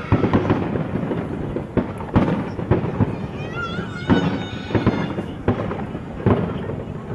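Aerial fireworks bursting in quick succession: a dense run of sharp bangs and crackles about once a second, over a continuous rumble.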